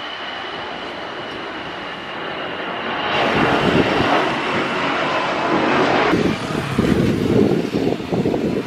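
Jet airliner engines at take-off power as the plane climbs away, with wind buffeting the microphone. The jet noise swells sharply about three seconds in and drops away abruptly about three seconds later, leaving mostly wind rumble.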